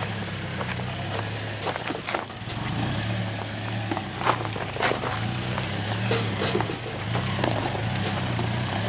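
Toyota Tacoma pickup engine running at low revs with a steady hum that rises and falls slightly as the truck crawls over rocks. Scattered sharp crunches and clicks from the rocky ground.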